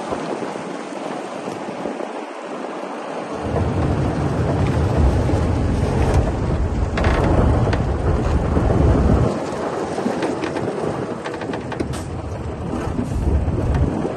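Bulldozer diesel engine and tracks working, with noisy mechanical clatter throughout. A heavy low rumble comes in about three and a half seconds in and eases off about nine seconds in, as the machine works under load.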